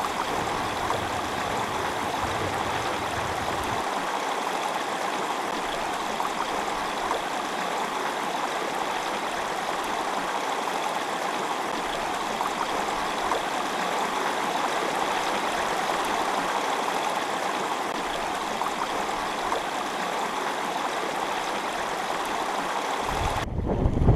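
Small stream rushing steadily over a shallow, rocky riffle. Wind rumbles on the microphone for the first few seconds and again just before the end.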